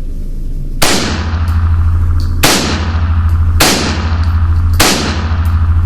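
Four unsuppressed shots from a semi-automatic Ruger 10/22 converted to .17 HM2, fired about one to one and a half seconds apart, each echoing off the walls of an indoor range. A steady low hum runs underneath.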